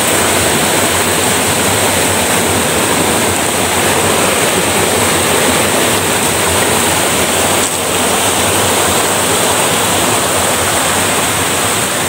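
Fast, shallow, rocky stream rushing loudly and steadily around the legs of a person wading in it.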